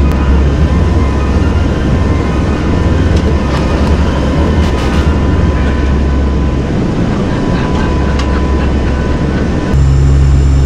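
Loud steady drone of a NOAA WP-3D Orion's four turboprop engines heard inside the cabin in flight, with a faint steady whine. About nine seconds in it changes abruptly to a louder, more even hum with clear steady tones, heard from the cockpit.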